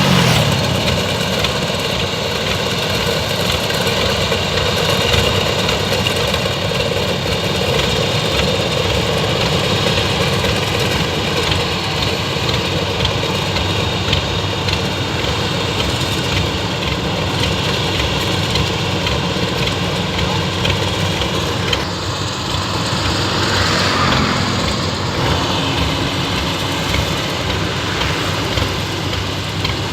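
Rice combine harvester running steadily at work, a continuous loud mechanical drone of engine and machinery.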